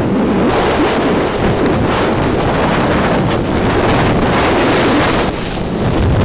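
Storm wind buffeting the microphone over rushing water and spray from a D class inshore lifeboat running through rough harbour water. The noise is loud and even, easing briefly about five seconds in.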